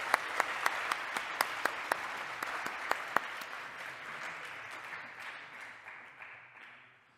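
Audience applauding, with loud single claps standing out during the first three seconds, then thinning and dying away toward the end.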